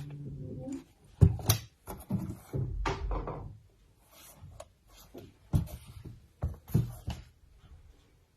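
Knocks and clunks of old mechanical alarm clocks being picked up, turned over and set down on a hard surface. The sharpest knocks fall about a second in and again around the middle, with rustling and shuffling between them.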